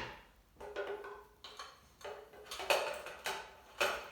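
Metal clicks and clinks, roughly one every half second to second, each with a short ring, from hand tools and parts as the stock is fitted back onto a semi-auto shotgun.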